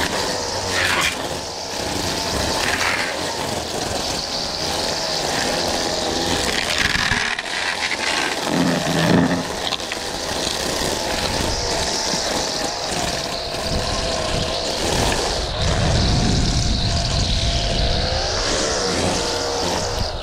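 Lawn mower engine running steadily while cutting grass, its pitch wavering slightly as the load changes.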